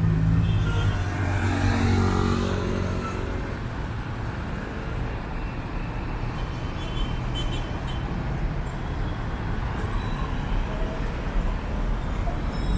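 Road traffic passing close by: one vehicle's engine rises in pitch as it speeds up over the first few seconds, then a steady rush of cars and tyres.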